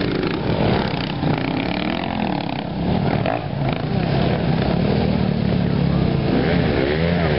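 Several enduro dirt bike engines running and revving, rising and falling in pitch as the riders work the throttle at low speed; quick up-and-down revs near the end.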